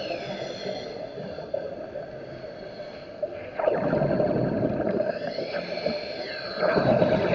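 Underwater ambience picked up by a submerged camera: a steady hum with faint sliding whine tones above it. Two surges of rushing noise come about three and a half and almost seven seconds in.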